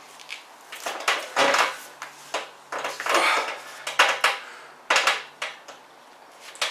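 Stacked cast-iron plates on heavy plate-loaded dumbbells clinking and clanking against each other and the handles, a run of irregular sharp metal knocks as the dumbbells are pressed.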